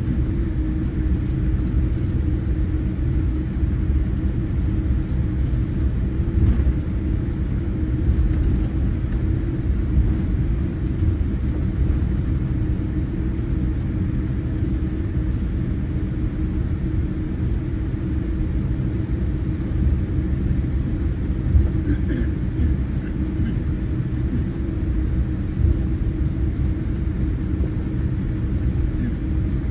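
Steady low rumble of a Boeing 787-8 airliner, with a few faint brief bumps.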